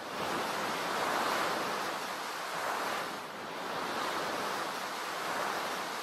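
Ocean surf: a steady rush of waves that swells and eases, dipping briefly a little past halfway.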